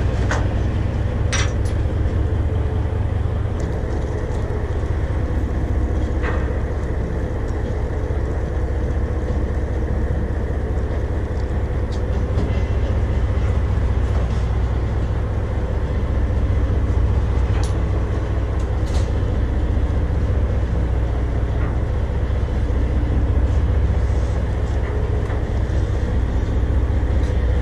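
Boat engine running with a steady low rumble, heard from the deck, with a few light clicks of fishing tackle now and then.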